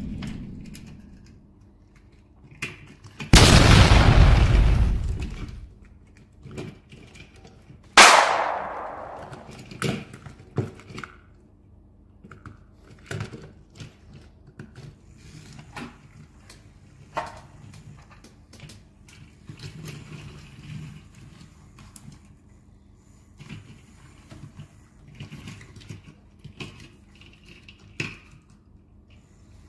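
Small plastic toy train pieces clicking and knocking as they are handled and coupled together on a table. About three seconds in there is a loud noisy burst lasting about two seconds, and a few seconds later a single sharp bang with a ringing tail.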